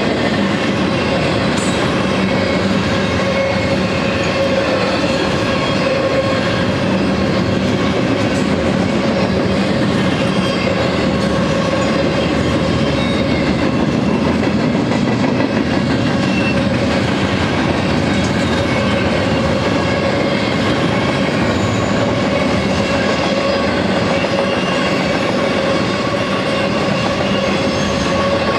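Double-stack container well cars of a freight train rolling past, a steady rolling rumble of steel wheels on rail with clickety-clack, and a steady ringing tone held over it.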